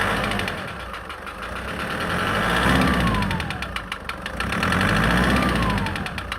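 Nissan Patrol Y61's 4.8-litre petrol straight-six running with a fast, even ticking knock, revved up and back down twice. The noise comes from the top end, which the mechanic traced to a missing piece on a camshaft cap and a damaged camshaft.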